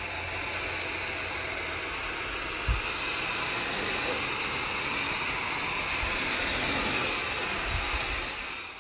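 Hose-end foam gun spraying soapy water onto a car's body: a steady hiss that swells a little louder past halfway, with one dull bump about three seconds in.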